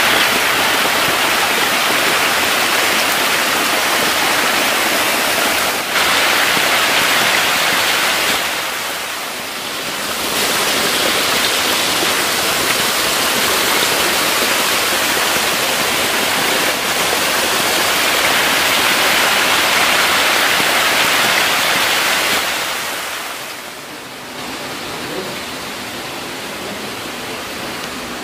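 Dense, steady splashing and churning of water as a crowded pond of hybrid magur catfish thrashes at the surface in a feeding frenzy. About 24 seconds in the splashing falls away, leaving a quieter steady hiss.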